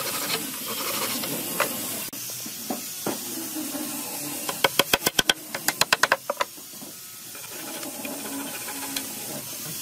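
A broad knife blade working on wooden pegs that stick out of a wooden board, trimming them flush. There are a few single knocks, then about halfway through two quick runs of rapid sharp clicks, all over a steady hiss.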